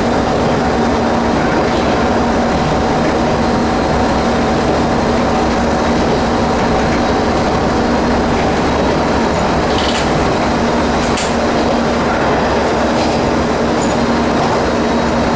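Ex-JNR KiHa 30 series diesel railcar (Kanto Railway KiHa 101) running under way, heard from inside the cab: a steady engine hum blended with the running noise of wheels on rail. A couple of brief high ticks come about ten and eleven seconds in.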